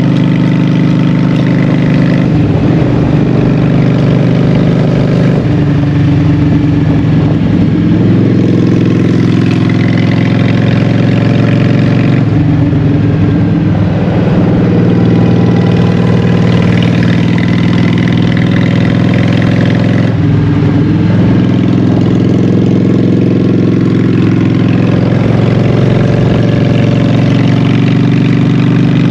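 Honda Shadow 750's V-twin engine running through Vance & Hines Short Shots exhaust pipes while riding, its pitch stepping down and climbing back up several times as the rider shifts and rolls the throttle through curves.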